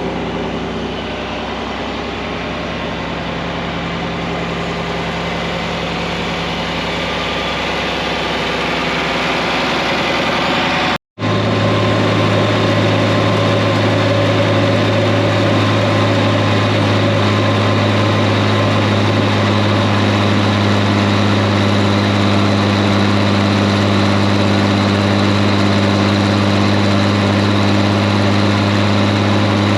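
John Deere 4010 tractor engine running steadily. About eleven seconds in the sound cuts out for a moment, then comes back as a louder, even engine hum that holds to the end.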